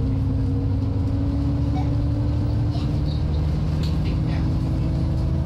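Alexander Dennis Enviro 400 double-decker bus with Voith automatic gearbox, heard from on board, its engine working hard. The engine note rises slowly and steadily as the bus accelerates, over a constant low rumble.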